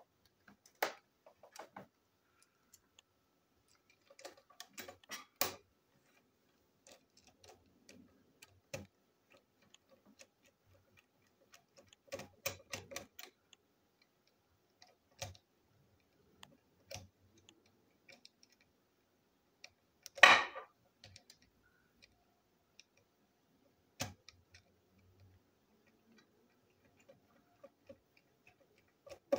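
Screwdriver and plastic parts of a toy train engine's chassis clicking and tapping in scattered small clusters as it is taken apart, with one louder knock about two-thirds of the way through.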